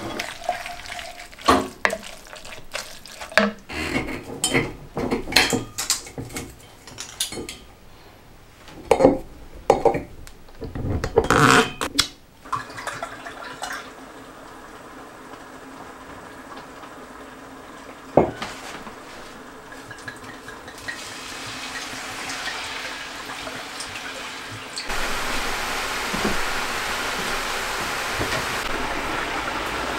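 A wooden spoon stirs thick meat sauce in a pot, with irregular scraping and knocks against the pot through the first twelve seconds or so. After a single sharp knock, a steady hiss of red wine boiling in a frying pan builds, louder from about two-thirds of the way in, as the wine reduces.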